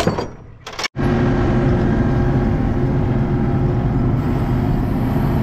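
A few brief clanks of a steel tie-down chain being unhooked. About a second in, after a cut, a skid steer's engine runs steadily, heard from the operator's seat in the cab.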